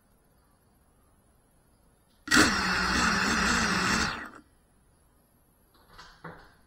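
FPV quadcopter's brushless motors spinning up while it sits on the floor, a loud whine wavering in pitch, stopping after about two seconds. Two faint knocks near the end.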